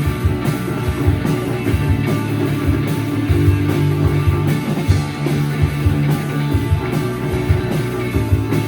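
A live rock band playing electric guitar, bass and drum kit, with steady drum hits under sustained guitar chords.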